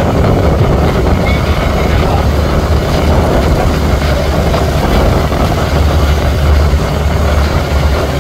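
Fishing boat's engine running steadily, a constant low drone under a rushing noise.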